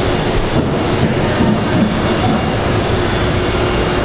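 G scale model trains running on the layout: a loud, steady rumble with a faint even hum.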